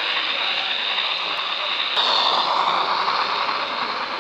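Model railway train, a pannier tank locomotive with coaches, running along the track: a steady rolling hiss that gets louder about two seconds in as it comes nearer, with one sharp click at that point.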